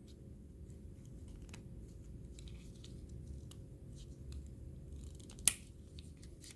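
A Victorinox Rescue Tool pocket knife being handled: faint light clicks over a low rumble, with one sharp click about five and a half seconds in.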